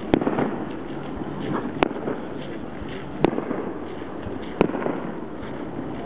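Aerial firework shells bursting in a starmine barrage: four sharp booms about a second and a half apart, with steady crackling between them.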